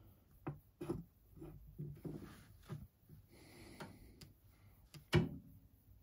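Faint handling noises: scattered small clicks, knocks and rustles as an inspection camera's cable is worked inside a car's petrol line, with one sharper knock about five seconds in.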